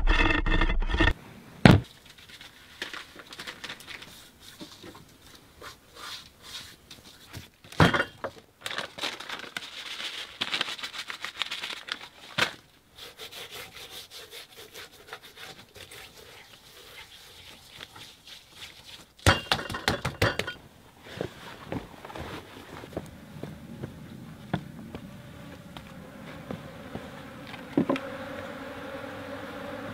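Scattered knocks and scrapes of hands at work, then, from about two-thirds of the way in, the steady buzzing hum of honeybees at an opened wooden beehive.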